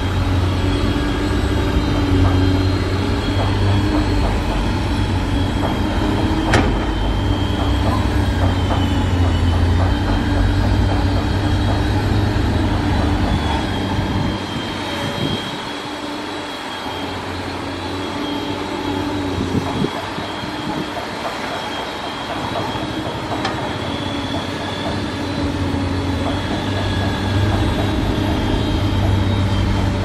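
Komatsu PC200 hydraulic excavator working as it digs and loads a dump truck: a steady diesel engine drone with a thin high whine over it. The low drone eases off for several seconds in the middle, then returns.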